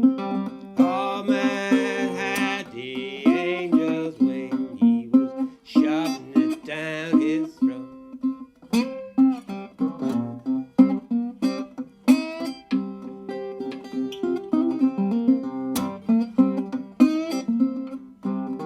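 National Resophonic tricone resonator guitar played with a bottleneck slide in an instrumental blues passage: plucked notes over a steady bass, with sliding, wavering high notes in the first few seconds.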